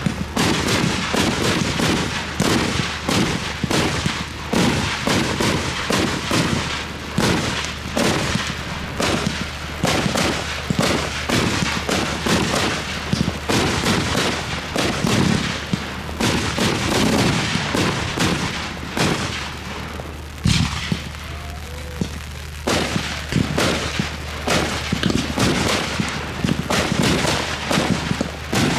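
Fireworks display going off in rapid, almost continuous bangs and crackling reports. About twenty seconds in it thins out briefly after one strong bang, then the rapid bangs pick up again.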